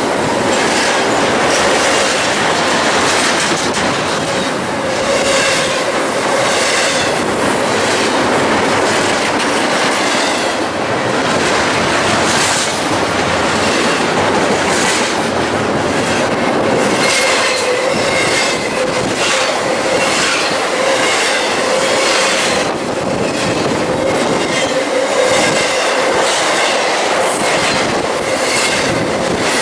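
Intermodal freight train of double-stacked containers and trailers passing close by at speed: a loud, steady rumble and rattle of the cars, with wheels clicking over rail joints and a steady high-pitched wheel squeal.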